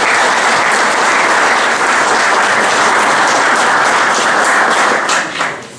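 An audience applauding: steady, dense clapping that dies away shortly before the end.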